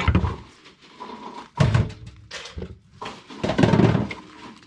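Swiss chard leaves being handled and pressed down on a wooden cutting board: three muffled thumps with leaf rustling, about a second and a half apart.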